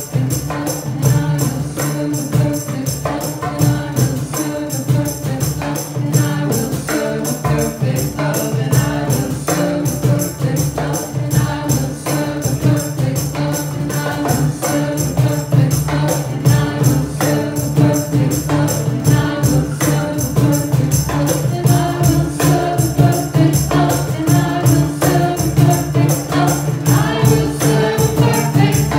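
Live kirtan devotional music from a small band: guitars and a steady low drone over a fast, even beat of hand percussion with tambourine-like jingles. Singing voices grow stronger in the last several seconds.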